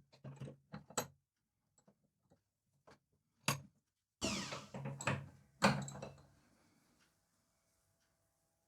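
Workbench handling clicks and knocks while working a wooden ring, with a sharp knock about three and a half seconds in. A little later a Dremel rotary tool gives a short whir that falls in pitch as it winds down, among a couple more knocks.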